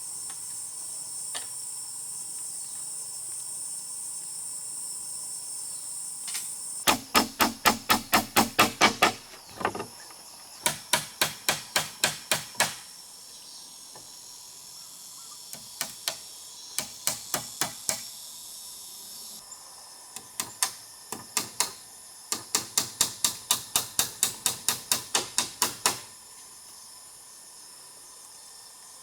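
Rapid hammer strikes in five bursts of about five blows a second, the longest of some fifteen blows near the end. A steady high chirring of insects runs underneath, loudest before the first burst.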